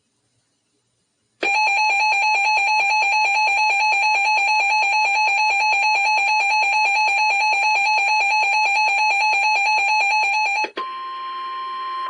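A weather alert radio's electronic alarm starts about a second and a half in: a loud, rapidly pulsing beep that lasts about nine seconds and signals an incoming warning. It gives way to about a second of the NOAA Weather Radio's steady 1050 Hz warning tone, which precedes the spoken alert.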